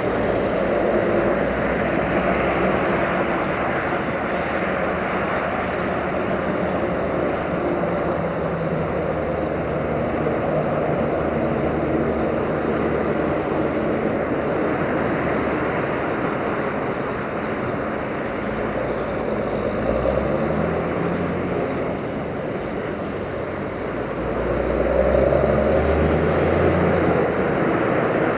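Sulzer-engined 060-DA (LDE2100) diesel-electric locomotive running steadily as it hauls a freight train slowly forward, with the engine whistle this class is known for. The deep engine rumble swells about two-thirds of the way through and grows louder near the end.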